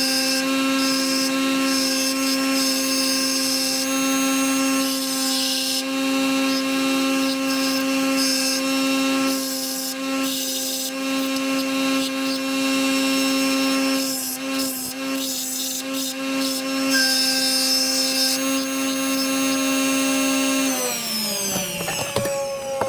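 Bench grinder running with a steady hum while its wheel grinds the metal edges of an aftermarket pulse pickup coil, the grinding noise rising and easing as the part is pressed on and pulled back. Near the end the hum falls in pitch as the grinder winds down.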